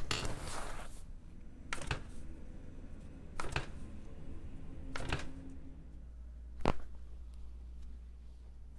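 Joints cracking under chiropractic adjustments: four sharp pops, spaced a little over a second and a half apart, the last the loudest.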